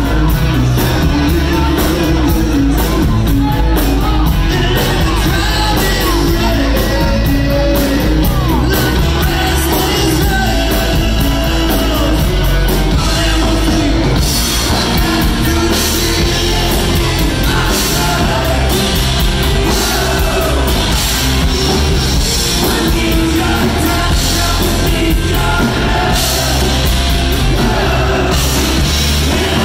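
Live rock band playing loud: a male lead singer belting into the microphone over electric guitars and a drum kit with steady cymbal hits, echoing in a large hall.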